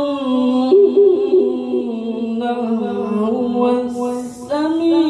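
A male Quran reciter's voice in melodic tilawah, drawing out a long melismatic phrase over several held notes that bend slowly up and down. It breaks off briefly about four seconds in, then the next phrase begins.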